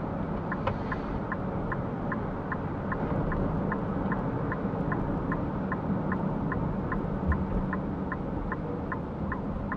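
Car turn-signal indicator ticking steadily, about three ticks a second, over the steady rumble of the car in motion, heard inside the cabin.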